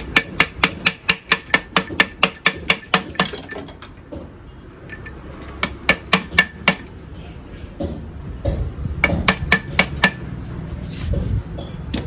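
Hammer blows on a seized KTM RC engine's cylinder barrel, knocking it loose from the jammed piston. A fast, even run of ringing metallic strikes, about four a second, stops about three seconds in, and two short bursts of strikes follow, around six and nine seconds in.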